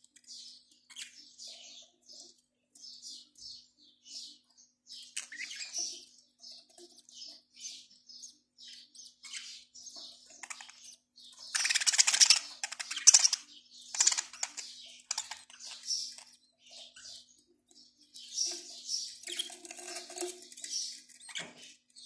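Budgerigars chirping and chattering in quick short high calls, with a louder, busier burst of chatter about twelve seconds in and another near the end.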